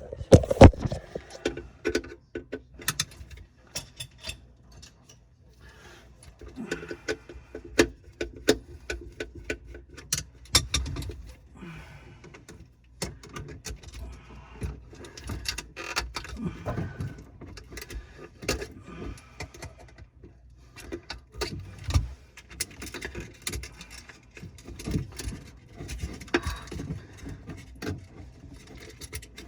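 Irregular clicks, knocks and light metallic clatter of hand tools and parts being handled during plumbing work, with a few louder thuds.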